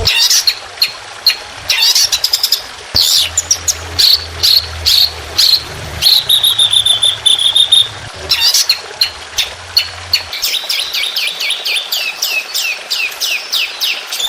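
Songbird song at close range, played as a training recording of fill-in phrases: a fast medley of sharp chirps and whistles, a steady trill about six seconds in, then quick repeated down-slurred notes, several a second, near the end.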